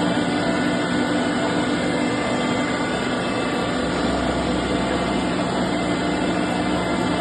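Cone crusher running on its test run after an overhaul: a steady mechanical drone with several held tones over a dense rumble, unchanging throughout.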